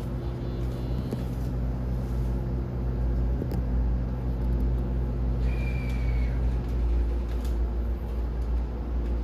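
Steady low hum inside a standing E231 series 1000 commuter train car, with several steady tones in it, while the train waits after an emergency stop. A short high beep sounds about halfway through.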